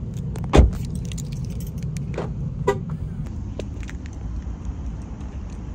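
A car door slams shut about half a second in. About two seconds later come two short horn chirps as the car locks, all over a steady low rumble of wind and handling on the phone's microphone.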